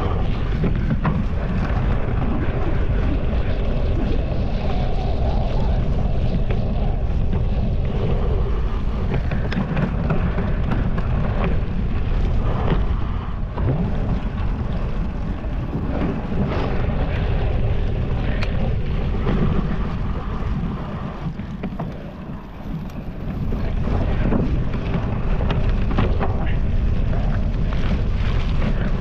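Wind buffeting an action camera's microphone in a steady low rumble, with scattered knocks and rattles. It eases off briefly about three quarters of the way through.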